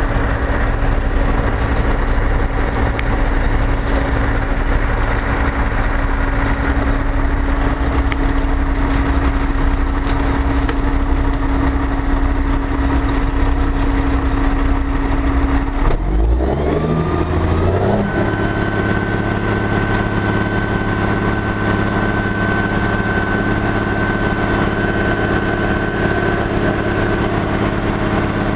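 Roll-off truck's diesel engine idling, then rising to a higher steady speed a little past halfway, when a thin high whine from the hydraulic hoist pump joins in as the hoist tips the container up.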